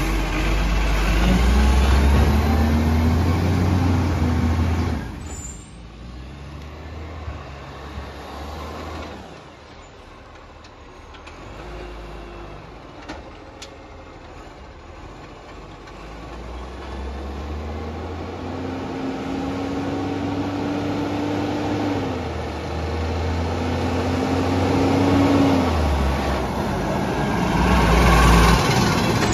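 Iveco side-loader garbage truck's diesel engine revving up in repeated rising surges as its automated arm lifts and tips wheelie bins; loud at first, fainter in the middle, then loud again near the end as the truck comes close.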